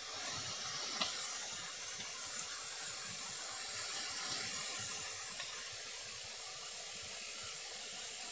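Steady hiss, with one faint click about a second in.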